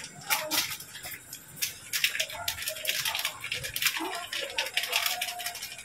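Foil sachet of Knorr Sinigang sa Sampalok soup mix being crinkled and torn open over a wok: a run of quick, crisp crackles, thickest in the middle.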